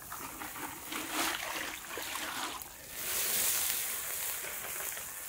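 Water splashed from a bundle of leafy branches onto hot, freshly roasted cashew nuts on the ground, quenching them in a rush of steam so they stop cooking. The noisy rush swells about a second in and again around three seconds in.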